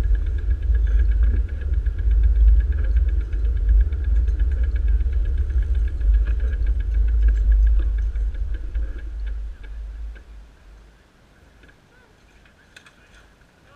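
Wind rumbling on a bicycle-mounted camera's microphone while riding, with a fast steady ticking, both dying away about ten seconds in as the bike slows to a stop; a couple of faint clicks near the end.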